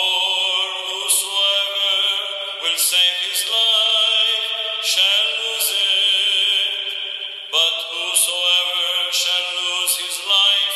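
A single voice chanting the Gospel reading in Orthodox liturgical recitative. It holds each note and steps to a new pitch about every two and a half seconds, with sharp consonants between the sustained vowels.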